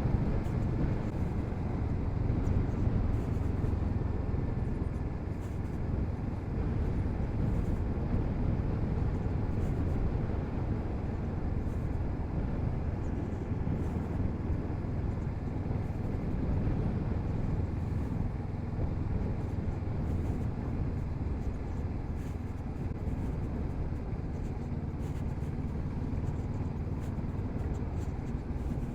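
Kawasaki Z650RS motorcycle under way: a steady low rush of wind and road noise over the running engine, with no sudden events.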